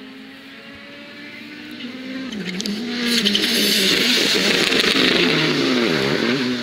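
Hyundai i20 Coupe WRC rally car's turbocharged 1.6-litre four-cylinder engine at racing speed, approaching and passing close. The note is steady and growing louder at first. From about two seconds in it drops and rises several times as the car brakes and changes gear for the corner, and it is loudest with a strong hiss as the car goes by.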